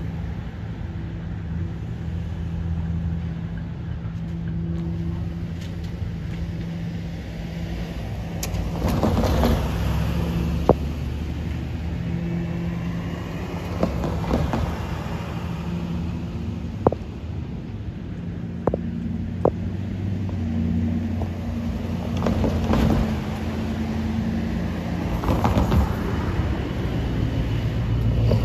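Road traffic: several cars pass one after another, each swelling up and fading, over a steady low engine drone. A few sharp single clicks come in the middle.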